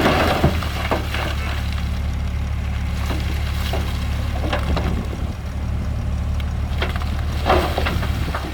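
Heavy diesel engine of earthmoving machinery running steadily at low revs, with intermittent crunching and clattering of stone fill. The loudest crunches come right at the start and about seven and a half seconds in.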